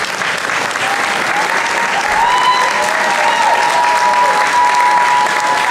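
Audience applauding, with a high steady tone held over the clapping from about two seconds in and shorter sliding tones beneath it.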